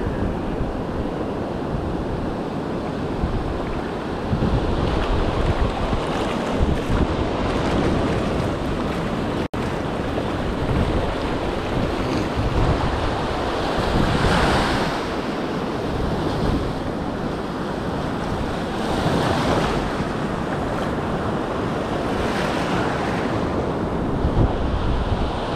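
Ocean surf washing in the shallows, with waves breaking in surges every few seconds and wind buffeting the microphone.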